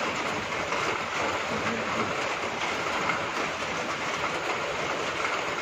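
A steady rushing noise with no distinct knocks or rhythm, and a faint voice briefly about two seconds in.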